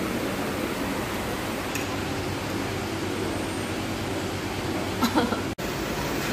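Steady hum of restaurant room noise, such as air conditioning, with a few light clinks of cutlery on crockery about five seconds in, just before the sound drops out for an instant.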